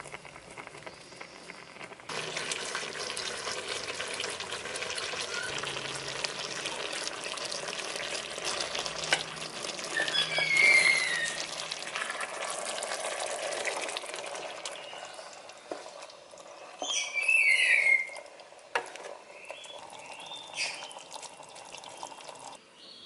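Coconut-milk sauce bubbling and sizzling around a whole grilled chicken in a wok as it simmers down, with a spatula stirring and basting. The crackle comes in about two seconds in and thins out in the last third, with a few short high squeaks in the middle and again later.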